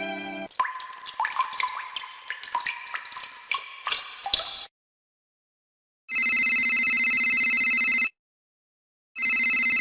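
Water drops dripping and plopping in quick irregular succession for about four seconds. After a short silence, a telephone rings twice, each ring a steady trilling tone lasting about two seconds.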